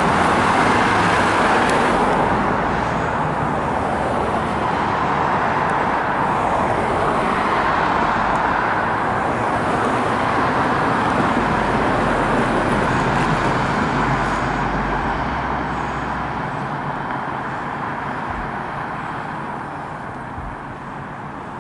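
Steady road traffic noise from vehicles on the street, fading over the last few seconds.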